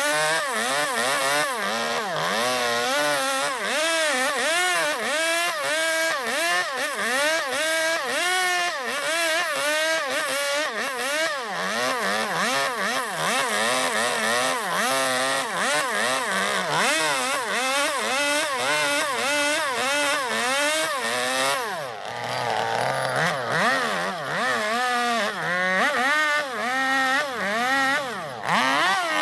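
Two-stroke chainsaw cutting into zelkova wood to hollow out a bowl, its engine pitch rising and falling about once a second as the throttle is worked against the cut, with a brief dip about 22 seconds in.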